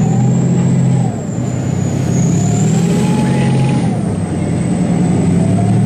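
T-90 tank's V12 diesel engine running hard as the tank drives through deep mud, with a high whine that rises and falls. The engine eases off briefly about a second in and again near four seconds.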